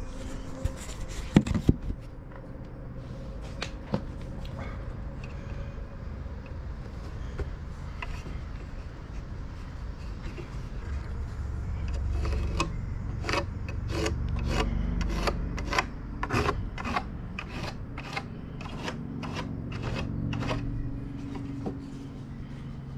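Knocks and rubbing on wooden ramp boards as tools are handled on them. In the second half comes a run of sharp knocks, about two a second, for several seconds.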